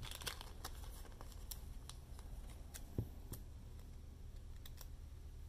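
Faint, scattered light clicks and ticks from small plastic miniatures and stands being handled on a tabletop, with one soft thump about three seconds in, over a steady low hum.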